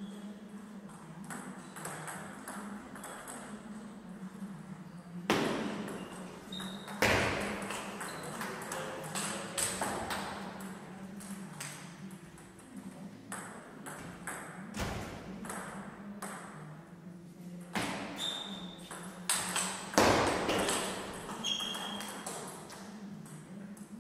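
Table tennis ball clicking back and forth off rackets and the table in fast rallies, with a few much louder sharp hits. A steady low hum runs underneath.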